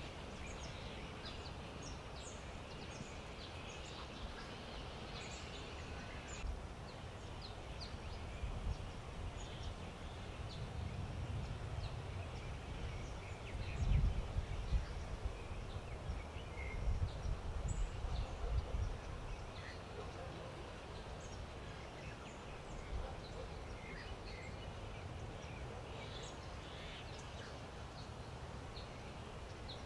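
Outdoor wetland ambience: wind buffeting the microphone in gusts, strongest about halfway through, with many short, high animal chirps and calls scattered throughout.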